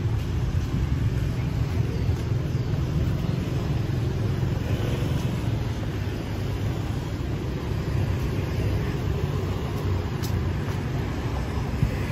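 Steady rumble of road traffic, even and unbroken, with most of its weight in the low end.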